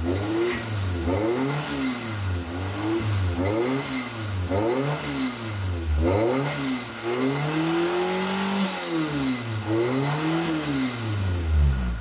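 Suzuki Karimun Kotak's engine revved while the car stands still, heard at the tailpipe through a stainless NDK aftermarket muffler and a newly fitted NDK resonator. It runs as a series of quick blips, rising and falling about once a second, with one longer, higher rev about two-thirds through. The exhaust stays mellow and doesn't scream even at high rpm.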